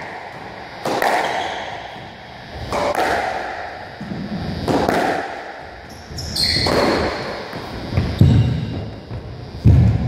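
Squash rally: racket strikes and the ball hitting the walls about every two seconds, each echoing around the court. A single high shoe squeak on the wooden floor comes about six and a half seconds in, and heavy footfalls thud close by near the end.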